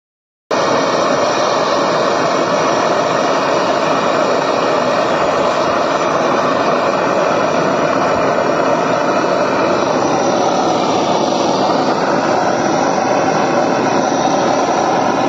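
Brazing torch flame burning with a loud, steady rushing noise, which cuts in abruptly about half a second in. The flame is heating the brazed joint where a copper pipe enters an AC compressor, to melt the braze so the pipe can be pulled free.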